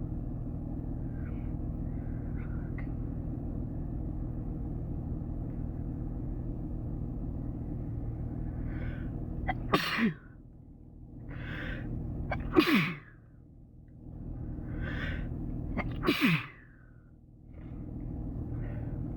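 A person sneezing three times in a row, a few seconds apart. Each sneeze is preceded by a sharp drawn-in breath and ends in a quick falling voiced burst. A steady low hum runs underneath, most noticeable before the first sneeze.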